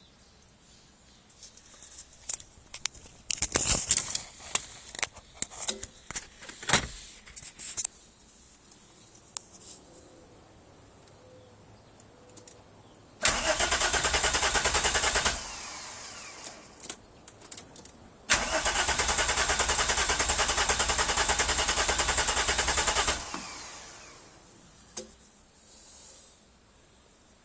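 Corrado VR6 engine cranked twice on the starter, about two seconds and then about five, without firing: a no-start with fuel but no spark. Before the cranking, a run of knocks and clicks.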